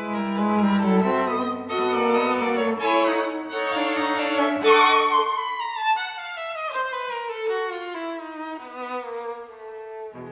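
Instrumental background music led by bowed strings, with a melody that steps downward in pitch through the second half.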